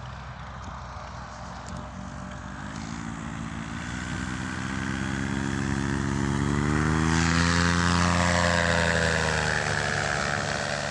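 Paramotor trike's engine and propeller droning as it flies past low, growing steadily louder to a peak about eight seconds in, the pitch rising as it comes in and dropping as it goes by, then fading.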